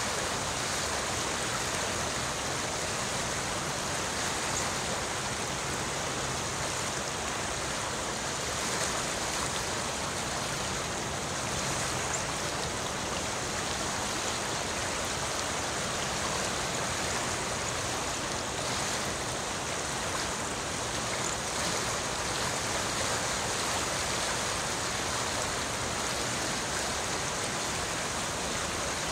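Shallow creek running over rocks: a steady rush of flowing water.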